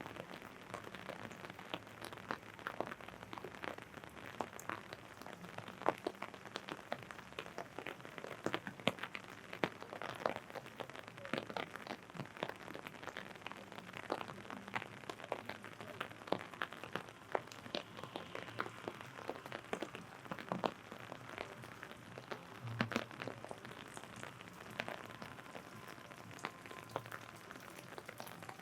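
Rain falling on an open umbrella just overhead: many separate drops tapping irregularly on the canopy over a steady hiss of rain.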